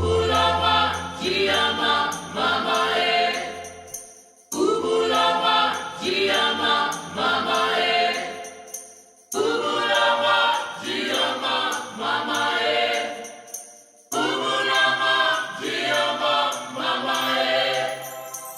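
Music with a choir singing: four sung phrases of about four to five seconds each, each fading out and the next starting abruptly, with a low bass note under the first.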